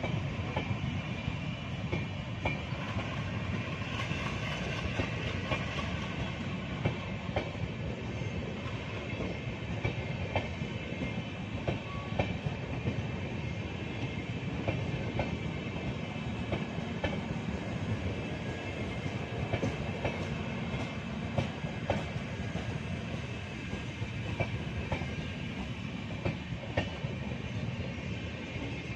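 Passenger train coaches rolling past close by: a steady rumble of steel wheels on rail, with frequent sharp clicks as the wheelsets cross rail joints.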